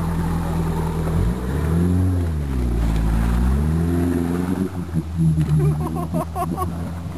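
Suzuki Samurai's engine running under load, revving up about a second in, then falling and rising again before settling back to a steady run.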